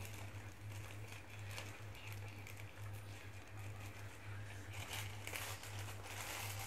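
White plastic courier mailer crinkling and rustling as it is cut open with scissors and handled, in scattered small crackles that grow busier near the end. A steady low hum runs underneath.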